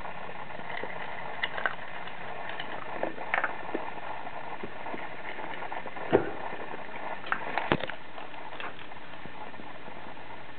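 Miniature pinscher eating dry kibble from a stainless steel bowl: scattered crunches and clicks of teeth and kibble against the metal, the loudest knocks about six seconds in and again near eight seconds, over steady background noise.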